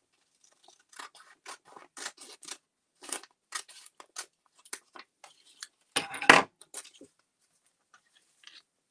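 Scissors snipping through paper in a quick series of short cuts, about two a second. About six seconds in comes a louder knock and rustle of paper handling.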